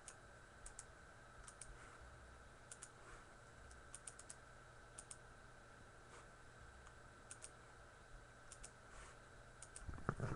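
Near silence with faint, scattered clicking at a computer, a few clicks at a time, over a faint steady hum.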